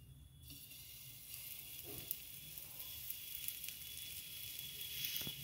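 Chilla batter sizzling and crackling as it is poured onto a hot, lightly oiled tawa. The hiss starts about half a second in and grows a little louder near the end.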